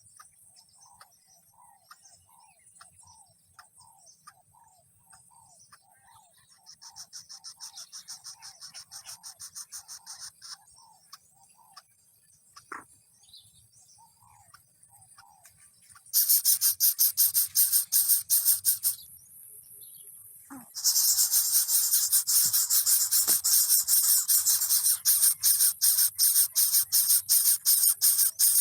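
Short chirps repeated about twice a second. From about halfway in, a loud, rapidly pulsing high buzz takes over, breaking off briefly and then going on.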